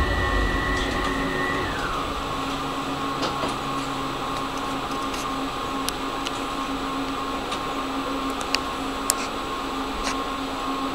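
Electric tram heard from inside, coming to a stop: a high traction-motor whine falls in pitch and dies away about two seconds in, and the running rumble drops. The standing tram then gives a steady electrical hum, with a few sharp clicks.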